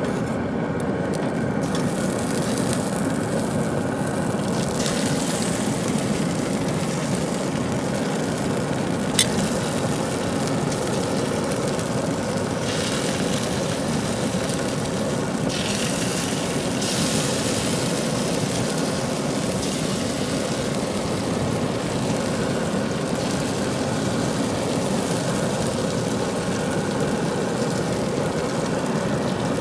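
Steady whirring of a Traeger Ranger pellet grill running, its fan going, with a single sharp click about nine seconds in.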